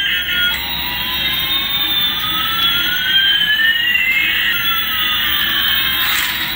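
Electronic jet-engine sound effect from a toy Airbus A380's built-in speaker: a steady rushing hiss with one whine rising and another falling until they meet about four seconds in, then a lower whine sliding down.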